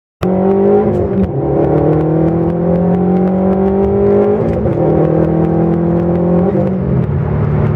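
2016 Subaru WRX STI's turbocharged 2.5-litre flat-four engine running under way, with a loud, fairly steady note that rises slowly and shifts a little over a second in and again around four and a half seconds in.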